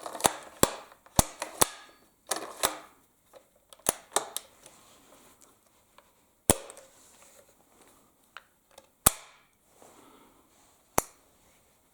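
Sharp metallic clicks and knocks from the rifle's parts being handled: a dozen or so irregular, separate clicks, some in quick pairs and small clusters, with short pauses between.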